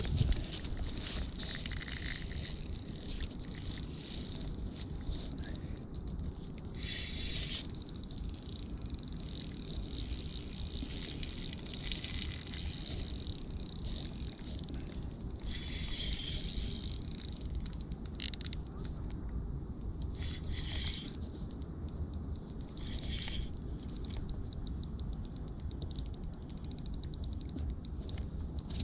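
High-pitched, fast-pulsed trilling of insects, coming and going in bouts of a few seconds, over a steady low rumble.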